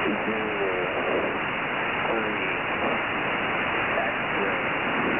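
Shortwave single-sideband reception of the US military HFGCS frequency 8992 kHz through a web SDR: steady static hiss with a weak voice transmission barely showing through, too faint to make out.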